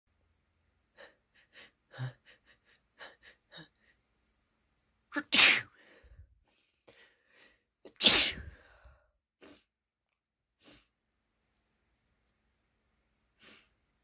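A person's exaggerated sneeze build-up: a run of short catching breaths, then two loud sneezes about five and eight seconds in. A few faint short breaths follow.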